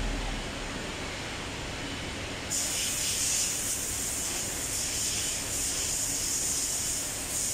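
A steady high-pitched hiss that starts suddenly about two and a half seconds in and keeps going.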